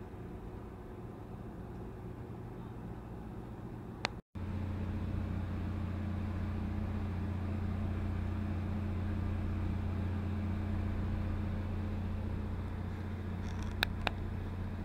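Steady low engine hum. About four seconds in it cuts out after a click and comes back louder. A few sharp clicks come near the end.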